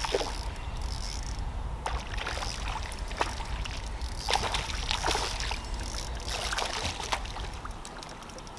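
A hooked crappie splashing and sloshing at the water surface several times as it is reeled in to the boat, over a steady low rumble.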